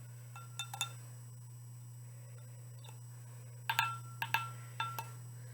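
Several light clinks of glassware, each with a short ring, coming in two small clusters, over a steady low hum.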